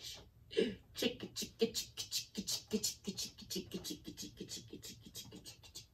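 Crispy breaded fried chicken and sandwich buns handled close to the microphone: a quick run of crackly rustles and taps, about three or four a second.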